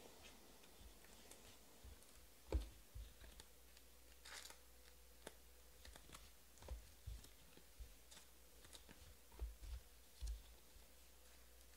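Faint clicks and light taps of glossy Panini Prizm football cards being handled and sorted, with a few soft thumps, the loudest about two and a half seconds in.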